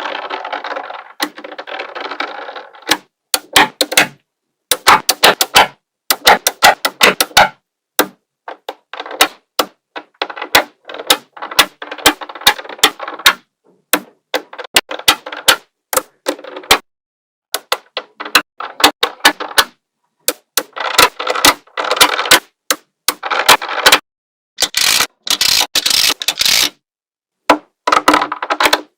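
Small magnetic balls snapping together with sharp clicks, in quick runs, with stretches of rattling as the balls roll and shift against each other. There are short pauses between the runs.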